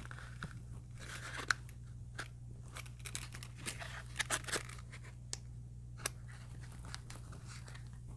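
Handling noise of a flashlight being pushed and worked into a snug holster: irregular scrapes, rustles and sharp clicks, the sharpest about one and a half seconds in and a cluster around four seconds in. A steady low hum runs underneath.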